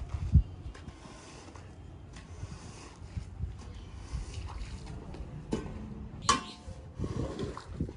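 Rubber floor squeegee pushed over a soaked shag rug, wet scraping and squishing as soapy water is driven off the pile. A heavy thump about half a second in is the loudest sound, and a sharp knock comes just past six seconds.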